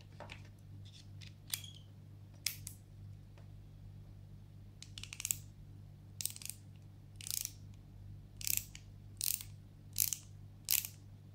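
Skil ratcheting screwdriver's ratchet clicking as its shaft is turned back and forth by hand: a few scattered clicks at first, then short runs of rapid clicks about once a second through the second half, with the action running smoothly.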